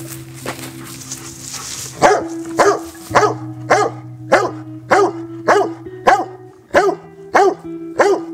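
Old English Sheepdog barking repeatedly, starting about two seconds in and going on at about two barks a second, over steady background music.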